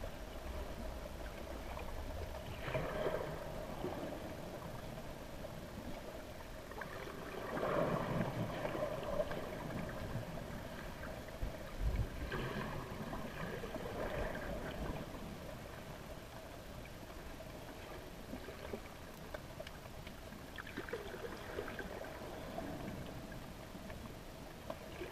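Underwater water movement heard muffled through a GoPro's waterproof housing, with surges that swell and fade every few seconds. There is a short low knock about twelve seconds in.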